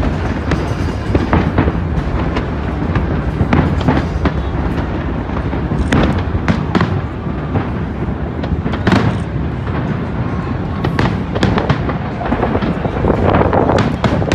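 Display fireworks going off in rapid succession: many sharp bangs and cracks close together over a continuous rumble. The bursts are densest around six, nine and eleven seconds in.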